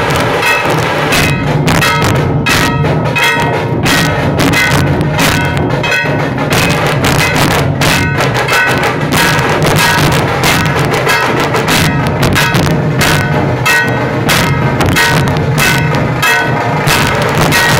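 A Maharashtrian dhol-tasha troupe: many large barrel dhol drums beaten with sticks in a fast, loud, continuous rhythm, with a metallic ringing over the beats.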